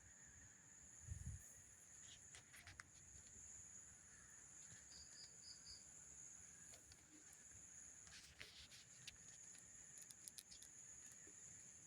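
Faint night ambience: a steady high insect drone, with scattered crackles from the campfire and a quick run of four short chirps near the middle.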